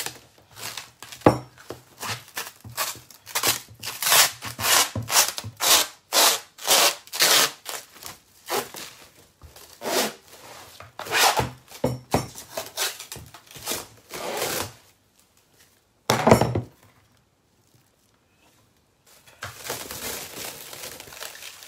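Plastic cling film being pulled off a large roll and stretched around a bowl: a run of irregular rasping pulls with the film crackling. After a short lull it ends in a softer crinkling as the film is pressed over the bowl's rim.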